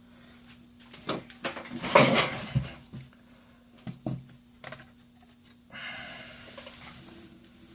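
Laptop parts being handled on a workbench: scattered knocks and clicks of plastic and metal pieces being picked up and set down, the loudest about two seconds in, then a short stretch of scraping and rustling near the end. A faint steady hum runs underneath.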